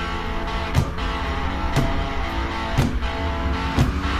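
Background music with held chords and a steady beat, about one hit a second.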